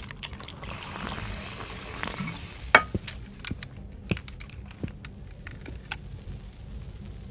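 Film sound-effects track: a soft hiss that lasts about two seconds, then a string of sharp clicks and light rattles, the loudest nearly three seconds in.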